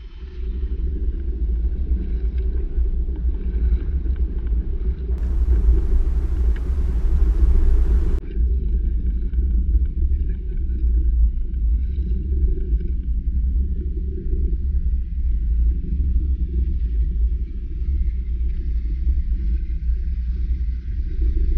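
Wind buffeting the microphone of a boat-mounted camera on an outrigger canoe at sea: a loud, steady, deep rumble, with a hiss from about five to eight seconds in.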